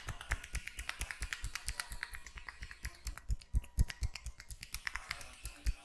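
Hands rapidly tapping and slapping on a head during an Indian head massage: a fast, uneven run of sharp smacks, several a second, with a few louder thumps past the middle.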